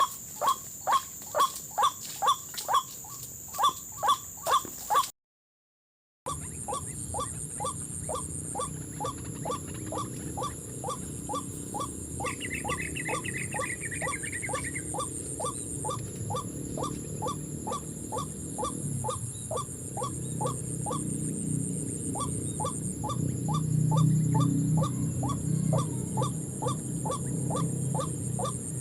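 White-breasted waterhen (ruak-ruak) calls repeating in an even rhythm, about two to three short notes a second, breaking off for about a second near five seconds in. A steady high insect-like whine runs underneath, and another bird trills briefly near the middle.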